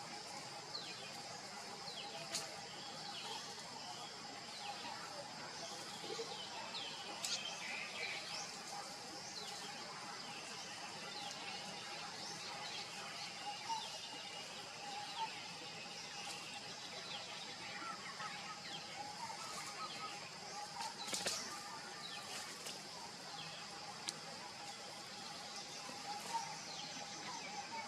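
Outdoor ambience: a steady high-pitched hum and a lower steady tone, with scattered short chirps and squeaks and a few sharp clicks, the loudest cluster about two-thirds of the way in.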